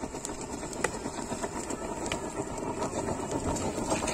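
Thermite rail-welding charge burning in its crucible on the rail: a steady, rough rushing noise with a few sharp cracks, the loudest a little under a second in.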